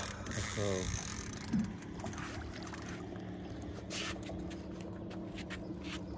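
Water swirling and splashing at the surface as a hooked wels catfish is played beside the boat, over a steady low hum. There is a short vocal sound near the start and a few brief splashy bursts about four seconds in.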